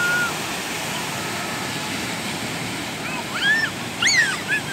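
Ocean surf breaking and washing up a sandy beach in a steady rush. Between about three and four and a half seconds in, a child's voice cuts in with a few short, high squeals that rise and fall.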